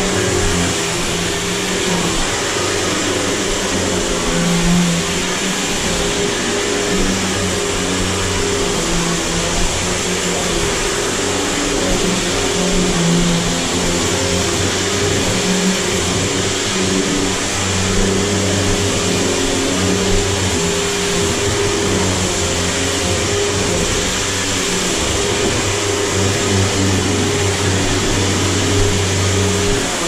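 Riccar 100 upright vacuum cleaner running steadily as it is pushed back and forth over a hardwood floor.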